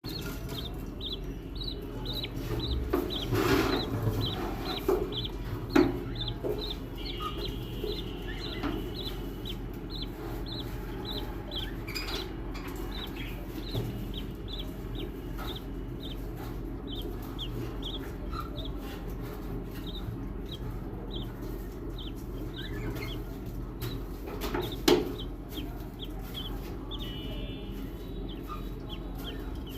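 Budgerigar chicks cheeping: a steady run of short, high cheeps, about two a second, over a low steady hum, with a few brief knocks or rustles.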